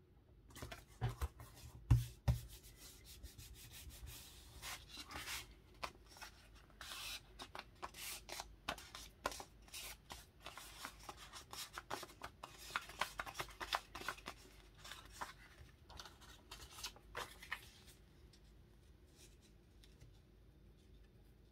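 Paper being rubbed and scratched by hand, a long run of short scraping strokes and small clicks that stops a few seconds before the end, with a couple of low knocks about one and two seconds in.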